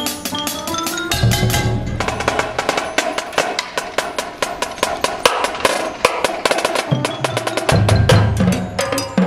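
Marching band drumline playing a fast percussion feature: rapid snare and tenor drum strokes, with deep marching bass drum notes about a second in and again near the end.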